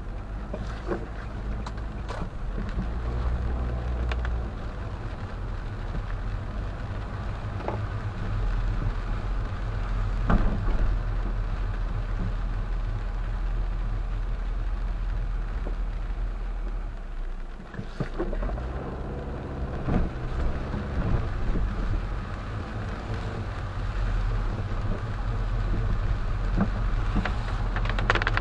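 Car engine and tyre noise heard from inside the cabin while driving in the rain, with a steady low hum and scattered sharp ticks of raindrops hitting the windshield. The noise dips briefly a little before halfway, then picks up again.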